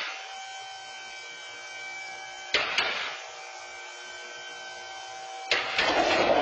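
A Toyota pickup truck shifting on a two-post lift as it tips forward off balance: sharp metal bangs from the truck and lift arms about two and a half seconds in (a quick double bang) and again about five and a half seconds in, then a louder, rough clatter near the end as it comes down.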